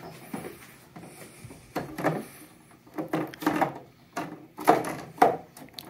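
Plastic side plate of a DAB EsyBox pump housing being fitted back on: a string of short plastic knocks, scrapes and clicks as the panel is pushed against the casing.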